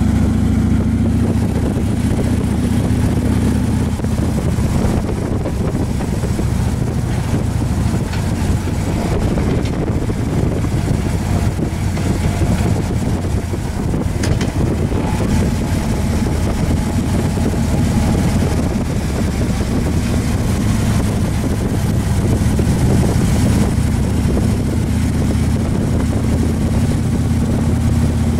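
Motorcycle engine running steadily at cruising speed, with wind noise on the microphone.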